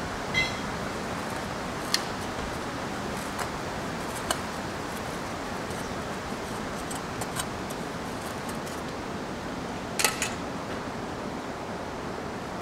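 Scattered metallic clicks and clinks from hose and cable fittings being handled at the side of a camper, with a brief high squeak just after the start and the loudest clinks about ten seconds in, over a steady hiss.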